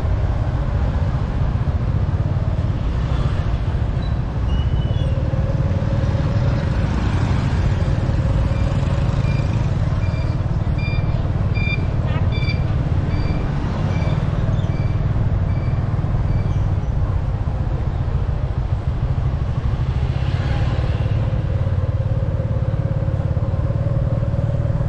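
Steady low rumble of wind and road noise from riding along a town street among traffic. A row of short high beeps, about two a second, runs for several seconds in the middle.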